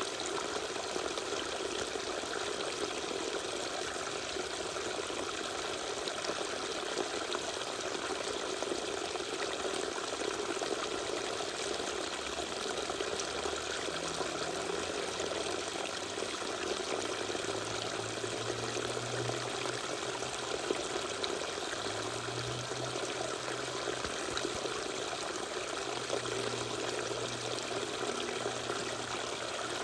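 Small waterfall: water pouring and splashing steadily. A faint low drone sits beneath it in the second half.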